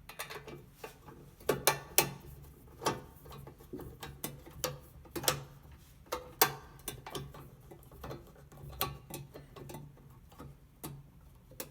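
Irregular clicks, taps and knocks of a door closer's cover being fitted back on and fastened, with a few louder knocks about two seconds in and again past the middle.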